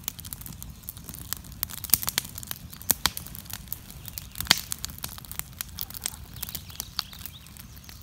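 Wood campfire in a stone ring crackling, with irregular sharp pops over a low rumble; one pop about four and a half seconds in is louder than the rest.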